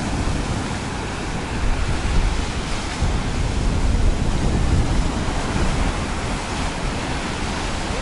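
Stormy sea, waves breaking on a beach in a steady rush of surf, with strong wind rumbling on the microphone.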